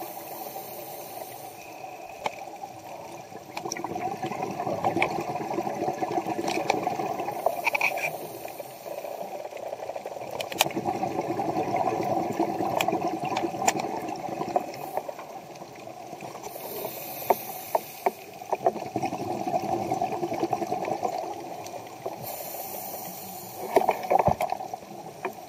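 Scuba diver breathing underwater through a regulator: a short high hiss on each inhale and a longer bubbling rush of exhaled air, repeating about every seven seconds. Scattered sharp clicks are heard throughout.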